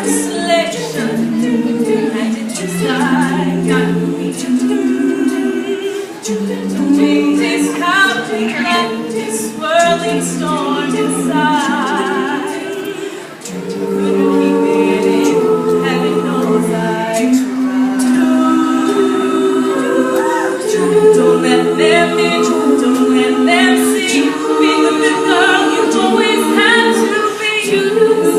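All-female a cappella group singing in close harmony: several voices hold sustained chords that change every second or so beneath a higher melody line, with a brief drop in loudness about halfway through.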